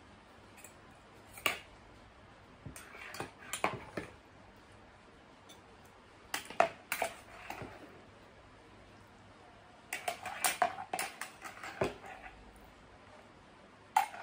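A metal spoon clinking and scraping against a plastic mixing bowl and a ceramic soup bowl as soup dumplings are served, in several short flurries with pauses between. Short eating noises are mixed in.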